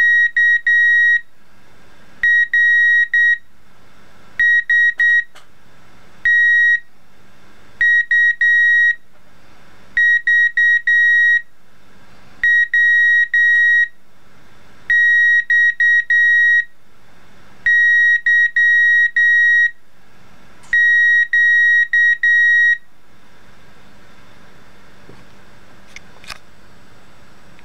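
Breadboard beeper driven by a Raspberry Pi sounding Morse code letters: groups of short and long steady high-pitched beeps, dots about 0.2 s and dashes about half a second, with a pause after each letter. The beeping stops about 23 seconds in.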